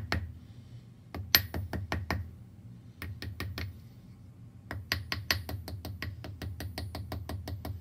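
Small jeweler's hammer tapping wire against a steel bench block, forging the end down to a point. Scattered single strikes at first, then a quick, even run of about five taps a second from about five seconds in.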